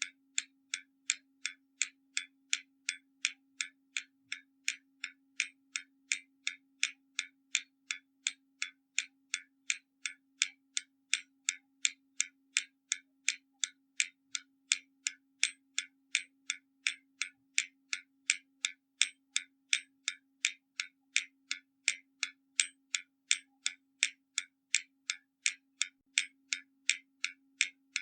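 Hermle mechanical skeleton clock ticking steadily, about three sharp, even ticks a second.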